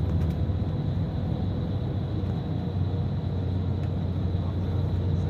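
A bus running on the road, heard from inside: a steady low engine and road rumble, with a faint thin whine held steady high above it.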